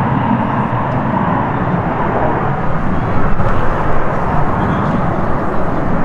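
Loud, steady rushing jet noise from an F-16 fighter's engine in flight.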